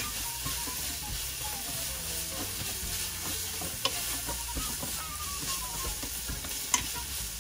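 Shredded chicken sizzling in a stainless steel skillet while being stirred with chopsticks, caramelizing in oyster sauce and sugar. Two sharp clicks stand out, about four seconds in and again near the end.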